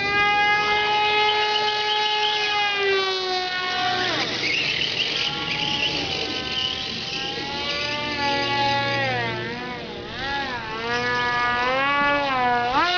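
Electric motor and propeller of a 22-inch EPP foam RC F-22 model in flight, a high whine whose pitch follows the throttle. It holds steady and high for the first few seconds, drops about four seconds in, then wavers up and down and climbs sharply near the end.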